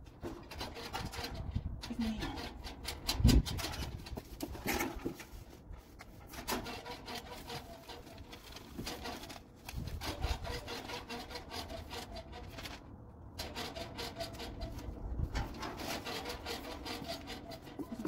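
Gas grill being put together by hand: a continuous run of quick scraping and clicking as parts are handled and fastened, with a few louder knocks, the loudest about three seconds in.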